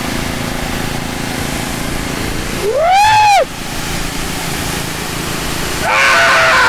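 Pressure washer running, its jet hissing as it sprays onto a bare shin. About three seconds in, a short loud cry rises and falls in pitch, and near the end a louder, steady horn-like tone cuts in.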